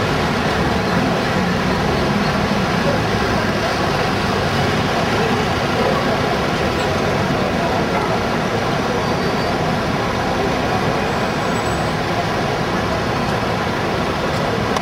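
Steady city street traffic noise, with buses and taxis running.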